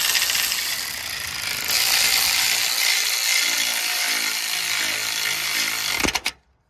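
Hyper Tough 12V cordless ratchet running under power, spinning out a bolt that was just broken loose, with a steady whirring and clatter of the ratchet head. It stops abruptly with a click about six seconds in.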